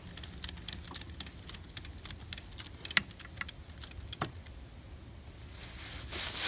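Ratchet strap being cranked tight, its ratchet clicking in quick, irregular runs with two louder snaps about three and four seconds in, as the strap is put in tension to lift the log on the dolly. A short rustle near the end.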